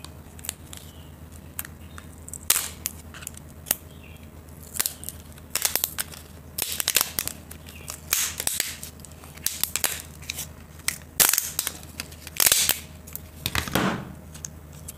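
Plastic laptop battery pack casing being pried apart with a screwdriver: a series of sharp, irregular cracks and snaps as the glued seam gives way.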